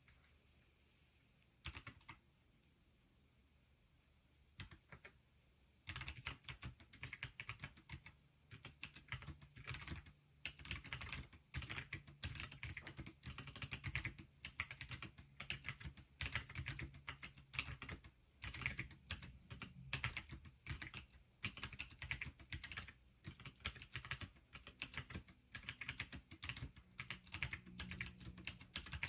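Typing on a handbuilt Pinky4 split mechanical keyboard: a few single key clicks, then from about six seconds in a fast, continuous run of keystrokes as in a typing test.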